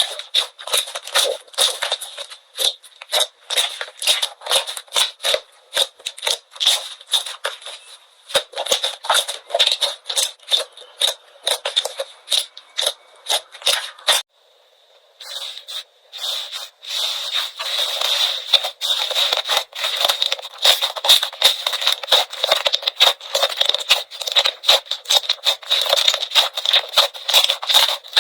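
Slime being squeezed and pressed, a rapid, irregular run of crackling pops and clicks, with a short break about fourteen seconds in.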